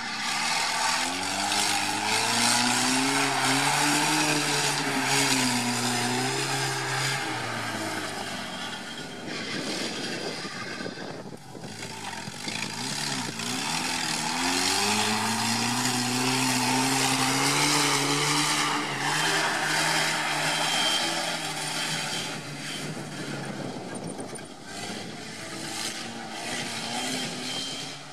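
A V8-engined UAZ off-roader's engine revving hard on a sprint run, its pitch rising and falling in two long pulls with a short lift-off about eleven seconds in, over a constant rush of tyre and wind noise.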